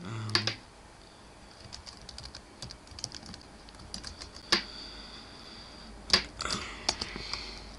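Typing on a computer keyboard: irregular key clicks, with a couple of louder clicks about four and a half and six seconds in.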